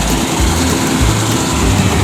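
Combine harvester running steadily as it cuts wheat, its engine and front cutter bar working together in a loud, even mechanical noise.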